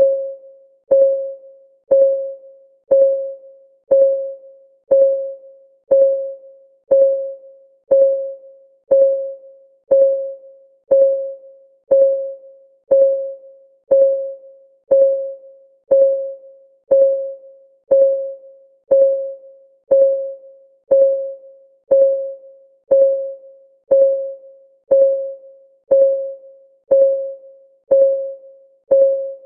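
Ticking-clock sound effect of a countdown timer, one tick a second, each a short click with a brief ringing tone that dies away before the next.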